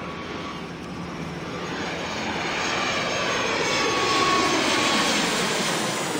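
Airplane engine noise: a dense roar that cuts in abruptly, swells over the first few seconds to a peak about two-thirds of the way through, then eases slightly.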